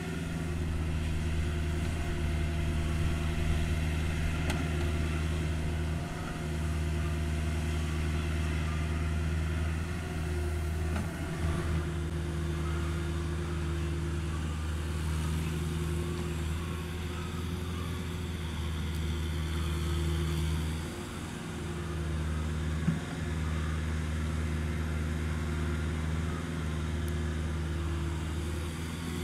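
CAT 305.5E2 mini excavator's diesel engine running steadily while it digs and lifts dirt, its note dipping briefly a few times. One sharp knock sounds about three-quarters of the way through.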